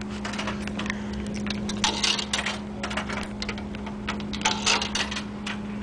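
Coins clicking and clinking as they are handled and fed into a soda vending machine, in quick irregular ticks, over the machine's steady low hum.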